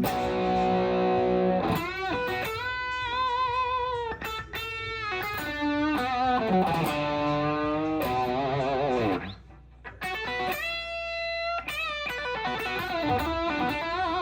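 Electric guitar, a Gibson SG played through a 1965 Magnatone M2 amp: a held chord, then a run of single sustained notes with wavering vibrato and bends, briefly stopping about nine seconds in before the playing resumes.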